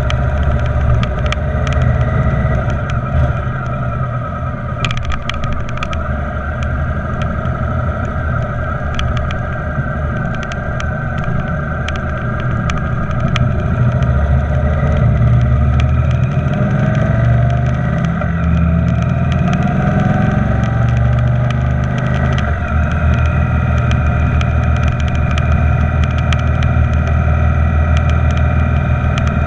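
Motorcycle engine running on the move, its note rising and getting louder about halfway through as the bike speeds up onto the highway, with wind rushing over the windscreen.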